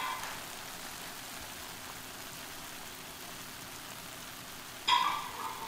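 Stuffed cabbage wedges sizzling in a cast-iron skillet, a steady hiss now that the cooking liquid has evaporated. A brief louder sound about five seconds in.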